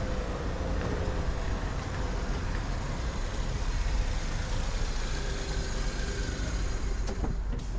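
A car being driven, its engine and tyres making a steady low road noise.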